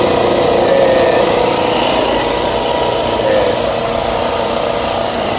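Refrigerant recovery machine running steadily, its compressor pulling the refrigerant charge out of an air-conditioning condenser through the high-side connection.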